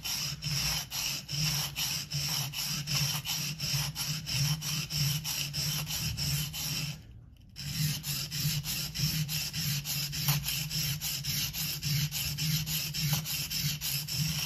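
Steel blade of an Opinel folding knife held almost flat on a wet, coarse 120-grit Shapton Kuromaku whetstone and scrubbed back and forth, about three scraping strokes a second, with a brief pause about seven seconds in. Laid flat on the coarse grit, the whole blade face is being scratched into a false hamon pattern.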